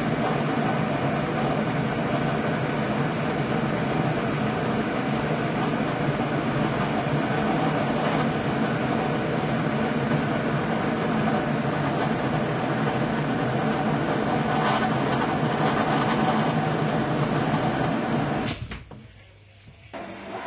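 Drain-cleaning water hose sealed into a washing-machine pan drain with a rubber cup, forcing water down the drain pipe: a steady, loud rushing noise that cuts off abruptly about eighteen seconds in.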